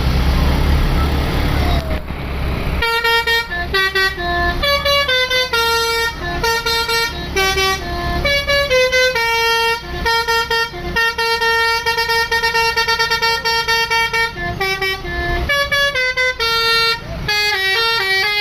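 A low engine rumble, then, about three seconds in, an Indonesian bus's basuri 'telolet' multi-tone musical air horn starts playing a tune. The tune is a long run of quick stepped notes that changes pitch every fraction of a second.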